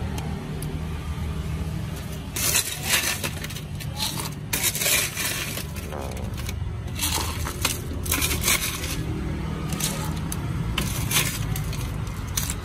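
Ice cubes clattering as they are scooped from a plastic cooler and dropped into a plastic drink cup, in about four separate bursts of rattling, over a steady low hum.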